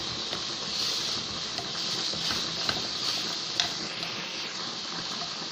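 Chopped onion sizzling steadily as it fries in a pot, being fried just until golden, with a few light knocks and scrapes of a wooden spatula stirring it.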